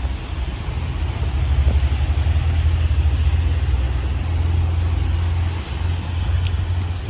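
Wind buffeting the microphone in a snowstorm: a steady, gusting low rumble that swells for a few seconds in the middle.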